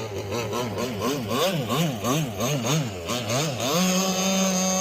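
Two-stroke petrol engine of a Proboat Rockstar 48 RC boat, its pitch rising and falling about twice a second as the throttle is worked, then held steady at higher revs for about a second before dropping back near the end.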